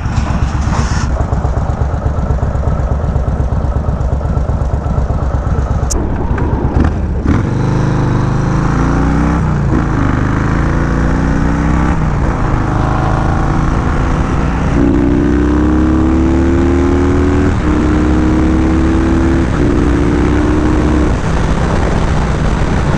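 Yamaha Road Star Warrior 1700's V-twin engine through a Speedstar aftermarket exhaust, accelerating through the gears from about seven seconds in: the note rises, drops back at each upshift and rises again, over steady wind rush.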